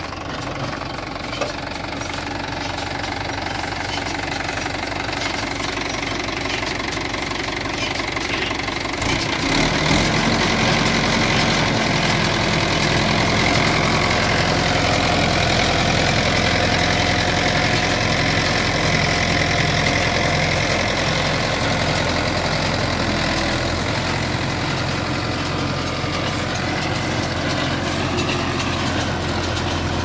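Mahindra Yuvo 575 tractor's four-cylinder diesel engine running steadily while it drives an Aambal straw baler from its PTO through paddy straw, the baler's machinery adding to the engine sound. The sound grows louder about nine seconds in.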